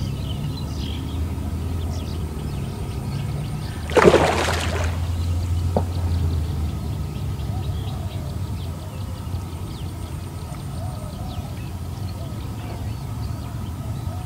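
A hooked giant snakehead thrashing at the surface: one short, loud splash about four seconds in, with smaller water sounds over a low steady hum.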